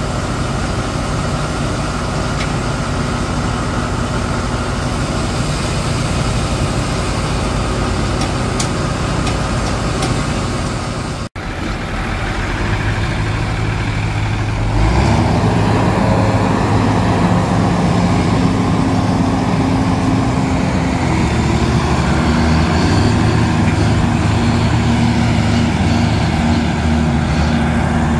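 Tractor diesel engines running. After a sudden break about eleven seconds in, the engines rise to a higher speed and hold it, with a few steps in pitch. They are working under load as a red tractor pulls the stuck New Holland TM190 out on a tow cable.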